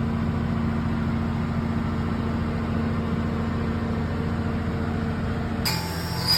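CNC milling machine running with a steady mechanical hum. Near the end the sound changes abruptly and a high-pitched whine comes in, as of the tool cutting metal.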